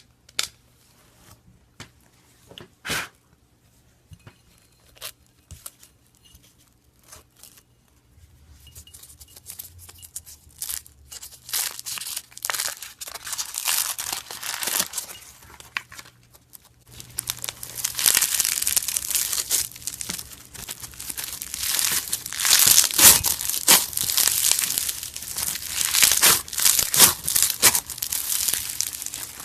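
Close-up crunching and crackling of a crumbly material being crushed: a few separate crisp clicks at first, then dense crackling from about a third of the way in, louder from a little past halfway.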